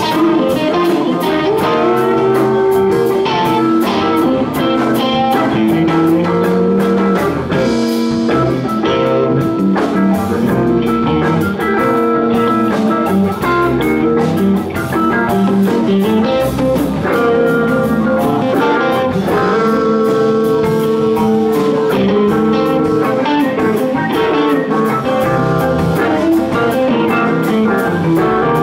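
Live blues band playing an instrumental passage with no singing: electric guitars over bass, electric keyboard and a drum kit, at a steady, loud level.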